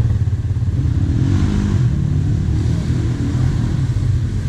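Quad bike engine idling close by, a steady low running, with a second quad's engine revving more faintly as it comes through the water.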